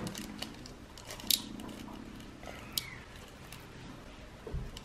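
Small clear plastic bag crinkling and rustling in the hands as it is opened and handled, with a few sharp clicks.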